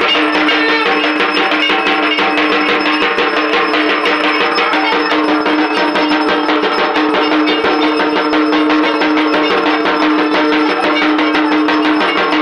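Fast, continuous metallic percussion of puja bells and gong, struck many times a second without a break, over a steady ringing tone.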